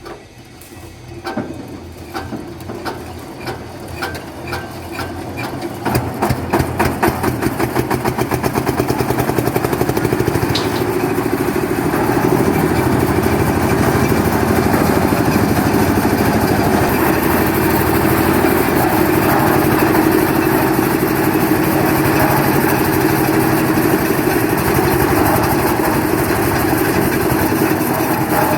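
The concrete mixer's 10 HP air-cooled diesel engine being turned over with slow, evenly spaced thumps about two a second, then catching about six seconds in and settling into steady running.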